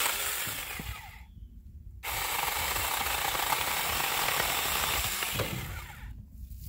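Saker 4-inch cordless mini chainsaw cutting branches into firewood, running in two bursts: a short one of about a second at the start, then a longer one of about four seconds from two seconds in.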